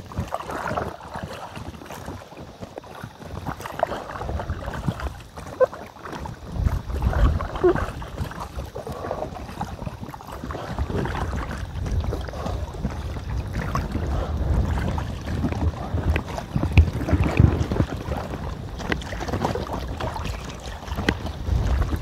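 Paddle strokes splashing and water lapping against an inflatable tandem kayak, with wind buffeting the microphone as a low rumble that grows heavier about six seconds in.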